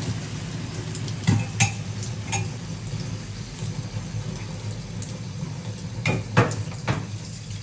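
Squid simmering in adobo sauce in a pan, the sauce bubbling and sizzling steadily. Several sharp clicks and taps come through, a few between one and two and a half seconds in and a few more near the end.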